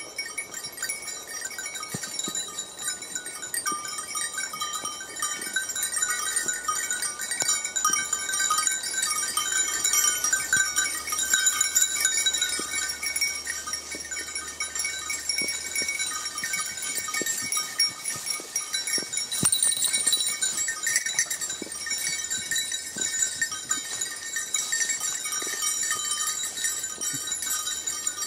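A pack of beagles questing through woodland: hound voices over a steady high ringing like small bells, with scattered sharp cracks of twigs and footfalls.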